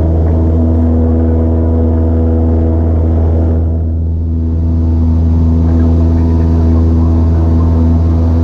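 Cessna 172S's four-cylinder Lycoming engine and propeller running steadily at full takeoff power, heard inside the cabin, with a brief dip in level about four seconds in.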